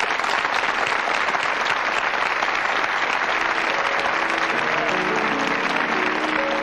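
Studio audience applauding steadily. Music with held notes comes in under the clapping about four seconds in.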